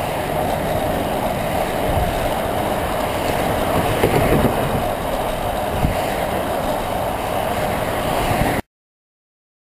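Highway traffic passing in the next lane, tyre and engine noise mixed with steady wind rush on the microphone, with one vehicle going by loudest about four seconds in. The sound cuts off suddenly near the end.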